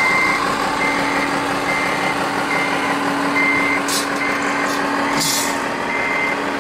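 Reversing warning beeper of a radio-controlled scale truck's sound module, a short high beep repeating about once a second over a steady low hum. Two short hisses come about four and five seconds in.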